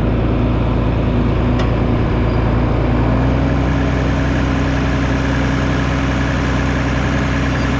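The engine of a piece of farm machinery running steadily and loudly close by, its pitch stepping up slightly about three seconds in.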